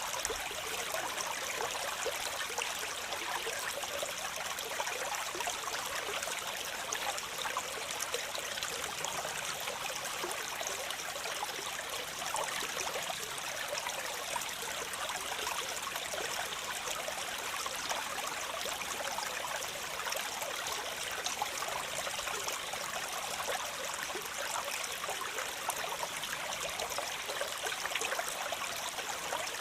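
Waterfall: a steady, even rush of falling and splashing water, mostly high and hissy with little deep rumble.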